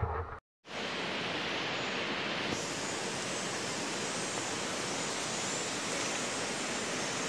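Steady, even rush of a river flowing, starting after a brief gap about half a second in.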